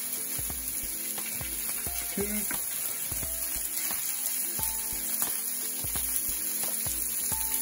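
Scallops sizzling steadily in hot ghee in a frying pan as more are laid in one at a time. Soft background music plays under it.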